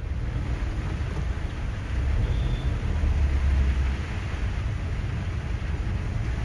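Heavy rain on a wet city road with motor scooter traffic, under a low steady rumble that grows louder about two seconds in.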